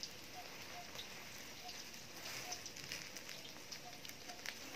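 Plastic wrapping and bubble wrap crinkling and crackling faintly as a package is handled and cut open, with scattered small clicks.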